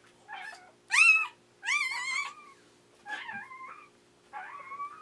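Newborn poodle puppy crying as it is handled: about five short, high-pitched squeals that rise and fall in pitch, the loudest about a second in.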